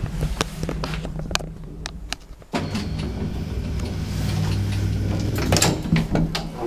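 Old swing-door lift running: a steady low motor hum with scattered clicks and knocks. The hum grows suddenly louder about two and a half seconds in.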